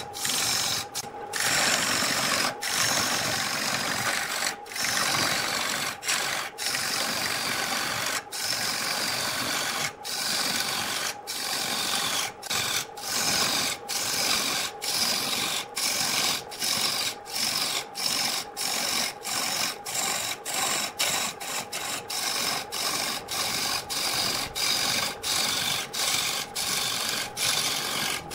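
Electric wood lathe spinning a large wooden blank while a turning tool cuts into it: a continuous scraping cut over a steady motor hum, broken by short breaks that come more often in the second half.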